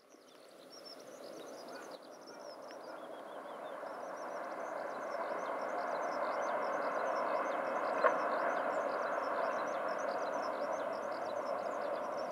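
JR 381 series electric train running across a steel truss bridge, a steady running noise that grows louder over the first several seconds and then holds. Small birds chirp throughout, and a single sharp click sounds about eight seconds in.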